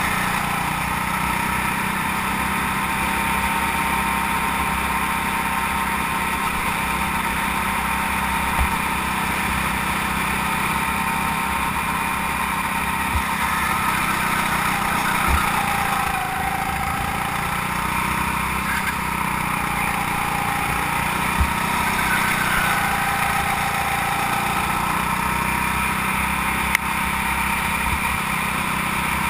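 Go-kart engine running at speed, heard from on board the kart. Its pitch dips and climbs back a few times about halfway through as the kart slows for corners and accelerates out, with a few short knocks now and then.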